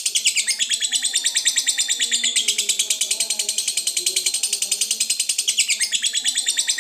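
Lovebird ngekek: a long, unbroken stream of rapid, shrill chattering notes, about ten a second, dipping briefly in pitch about half a second in and again near the end. It is the sustained chatter prized in fighter lovebirds.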